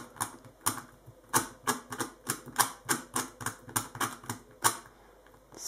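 Diansheng Galaxy Kilominx M magnetic puzzle being turned by hand: a quick run of sharp plastic clicks, about three a second, as each face turn snaps into place under its magnets. The clicking stops shortly before the end.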